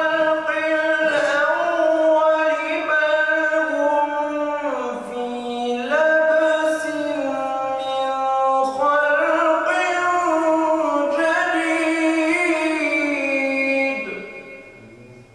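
A man's solo melodic Quran recitation sung in the maqam style: long held notes with ornamented turns of pitch. The phrase ends about 14 seconds in and dies away.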